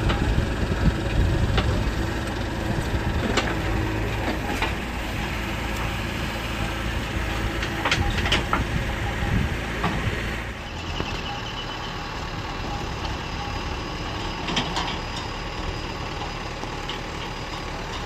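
Mahindra tractor's diesel engine running as it tows a trolley, with scattered sharp knocks over the steady low hum. About ten and a half seconds in, the sound cuts abruptly to a quieter, lighter engine sound.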